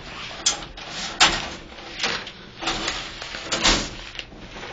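Handling noise around an X-ray table: rustling and sliding, broken by several sharp knocks and clicks at irregular intervals, as a person is repositioned to lie supine and equipment is shifted.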